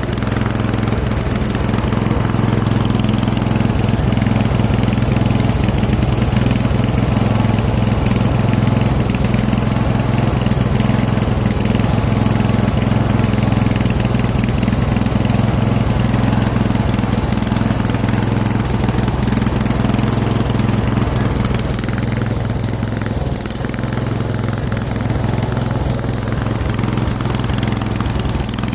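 Riding lawn mower's engine running steadily as the mower is driven, easing off briefly a little over three-quarters of the way through.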